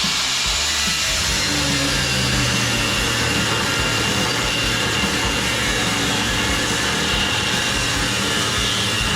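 Angle grinder cutting through steel, running steadily under load with a high whine.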